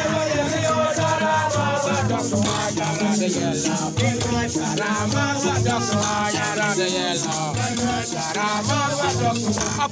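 Okeme music: large wooden box lamellophones (okeme thumb pianos) plucked in a steady repeating low pattern, with voices singing along and a rattling shaker sound over the top.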